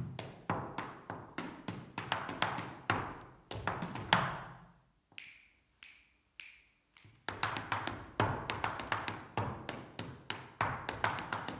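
Sean nós dancer's shoes striking a hard floor in quick reel-time steps, several taps a second, with a heavier stamp about four seconds in. The steps then stop for about three seconds and start again.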